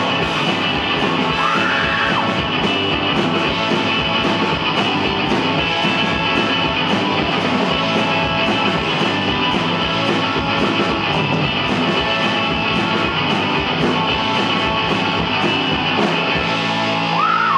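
Live rock band playing an instrumental passage, electric guitar over a steady drum beat.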